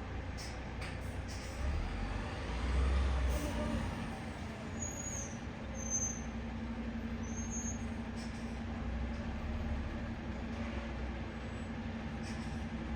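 Heavy machinery running: a steady low engine rumble, with a steady hum setting in about three and a half seconds in and a few short high squeaks in the middle.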